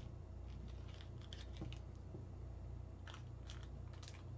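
Small metal screws and standoffs handled on a tabletop: light, scattered clicks and ticks as fingers pick them up and fit them, over a low steady hum.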